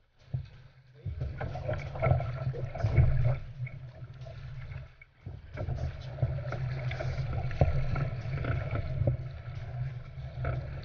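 Wind buffeting the microphone on the bow of an Epic V8 Ultra surfski, with water rushing and splashing along the hull as it runs downwind through choppy swell. The rumble drops out briefly just after the start and again about halfway.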